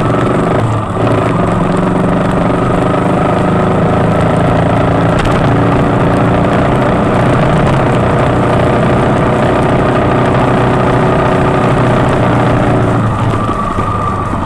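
Motorcycle engine running at a steady road speed, with wind rushing over the microphone. Near the end the engine note eases off and changes.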